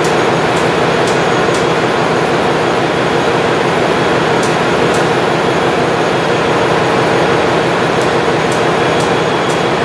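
Loud, steady drone of ship's engine-room machinery, with a few faint high ticks scattered through it.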